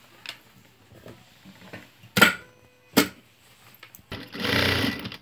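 Cotton fabric being handled and shifted at a sewing machine, with two sharp knocks a little past two and three seconds in, and a louder stretch of rustling for about a second near the end.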